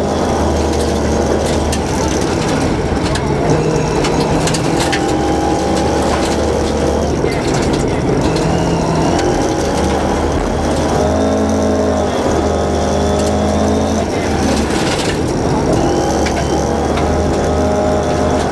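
A rally car's engine running hard from inside the cabin, its pitch stepping up and down repeatedly with gear changes and lifts. Scattered sharp clicks and rattles come through over it.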